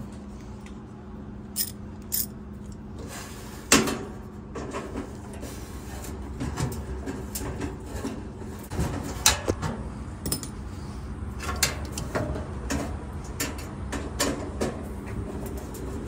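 Scattered metallic clicks and clanks of a 1/4-inch driver and hands working a screw loose on the heating element inside a dryer's sheet-metal cabinet, over a steady low hum.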